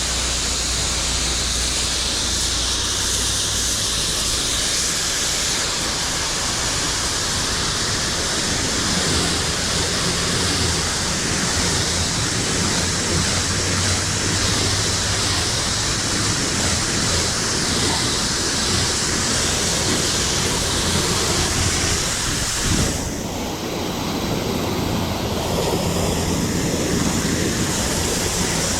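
Pressure washer spraying a surface: a steady loud hiss of the water jet over the low hum of the machine's motor and pump. About three quarters of the way through the spray dips briefly, then carries on.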